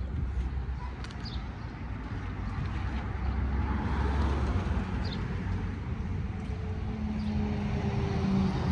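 Road traffic going by over a steady low rumble. Near the end a vehicle passes, its engine tone drifting slightly down in pitch.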